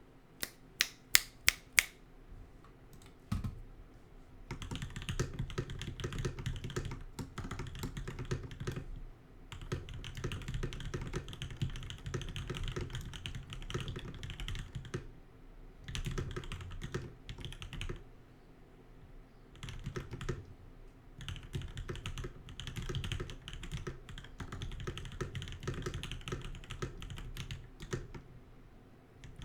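Typing on a custom Godspeed75 mechanical keyboard with a brass plate, lubed and filmed Durock POM linear switches and PBT keycaps. It opens with about six sharp, louder clicks in quick succession, then runs of fast typing with brief pauses every few seconds.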